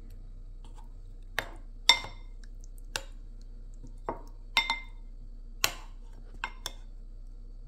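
Spoon clinking and scraping against a ceramic bowl of curry while someone eats: about nine short, sharp clinks, unevenly spaced, each with a brief ring. A low steady hum runs underneath.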